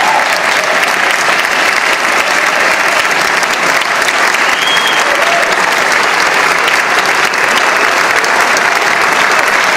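Theatre audience applauding steadily at a quartet's close.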